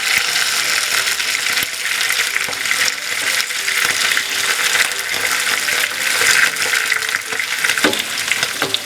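Duck pieces shallow-frying in hot ghee and coconut oil: a steady sizzle with small scattered pops.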